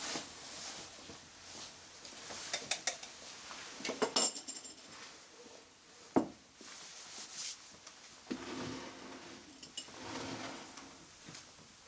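Small glass and metal utensils clinking and knocking on a wooden table as they are handled, with a cluster of sharp, ringing chinks about four seconds in and a single dull knock about two seconds later.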